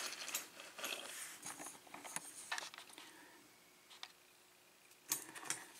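Faint small clicks and light scrapes of tiny brass lock pins and springs being handled and sorted on a work surface, with a quiet pause in the middle.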